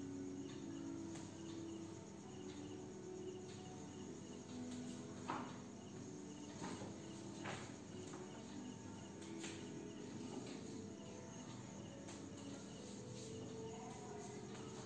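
Faint background of crickets chirping steadily, with a few short scratching strokes, the loudest about five seconds in.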